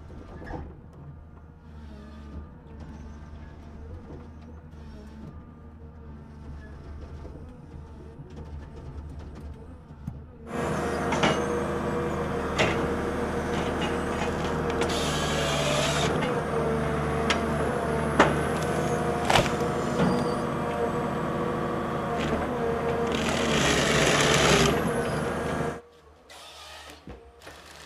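Komatsu forest harvester's diesel engine and hydraulics running, at first a steady low hum heard from inside the cab. About ten seconds in it turns much louder and fuller, with sharp clicks and knocks from the felling head and two stretches of harsh noise, then drops away sharply near the end.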